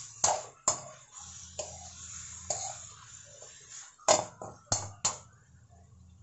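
Metal spoon stirring chicken pieces in an aluminium wok, knocking and scraping against the pan several times, with a low steady hum underneath.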